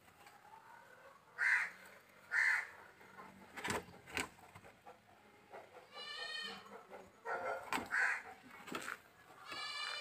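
Animal calls: short sharp calls about one and a half and two and a half seconds in and again around eight seconds, and two drawn-out calls, one around six seconds and one at the end. A few sharp clicks fall between them.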